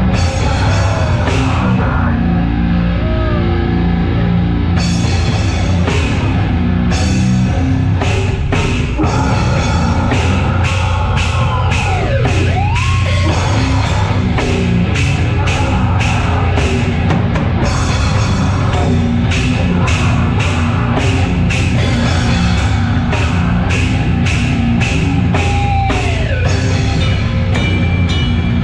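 Live heavy metal band playing loud: distorted guitar and bass over a drum kit, with fast, repeated cymbal and snare hits.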